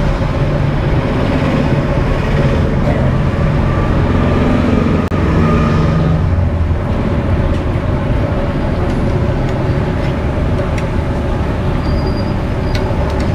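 Kachoris deep-frying slowly in a large kadai of hot oil, under a steady low rumble. A few light metal clicks come as a skewer turns them.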